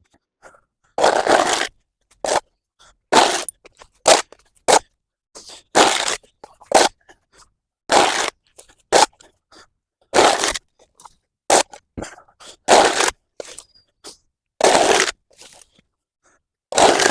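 A tool scraping built-up mud and leaves off a path surface in repeated strokes, about one every two seconds, with short knocks and crunches between them.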